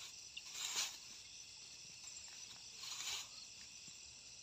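Steady night chorus of crickets and other insects, a continuous high buzzing, with two short rustles about half a second and three seconds in.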